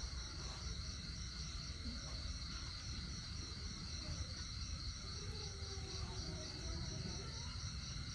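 Crickets chirping steadily in a high, evenly pulsing trill, over a low background rumble.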